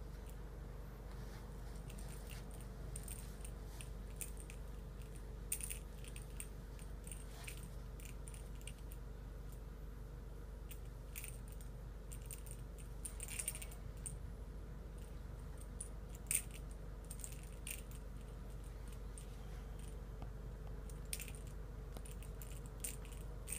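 Scattered faint clicks and ticks at irregular intervals, the sharpest about sixteen seconds in, over a steady low electrical hum.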